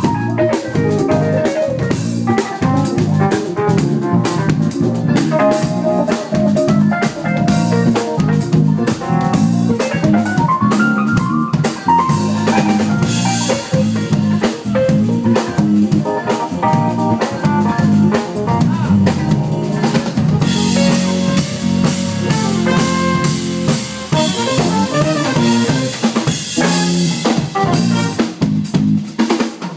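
A funk band playing live, with a drum kit's snare, bass drum and rimshots driving a steady beat under pitched instruments. Cymbals ring out at times.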